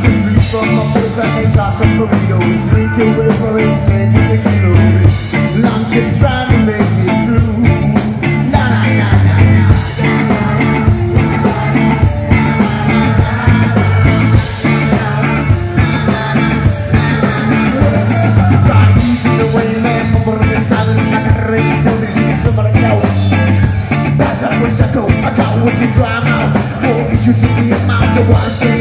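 Live rock band playing loud: electric guitars, bass and drums keeping a steady beat, with a singer.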